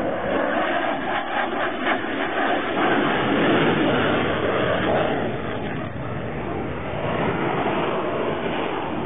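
Jet noise from a MiG-29 fighter flying a display overhead: a steady rushing sound that swells a little around the middle.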